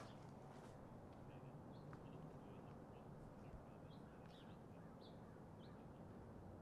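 Faint, scattered short bird chirps over a low, steady background hum.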